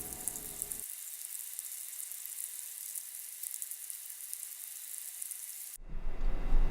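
Dry, high crackling hiss like faint sizzling, typical of a dermestid beetle colony feeding on carcasses. Near the end it cuts abruptly to a low rumble.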